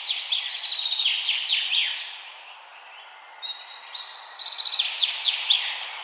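Songbird singing in bursts of rapid high chirps and falling trills over a steady background hiss. The song pauses about two seconds in and resumes about a second and a half later.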